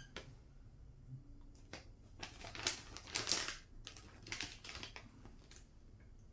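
A plastic snack pouch crinkling and rustling as a hand works in it, in irregular clicks and rustles that are loudest in the middle.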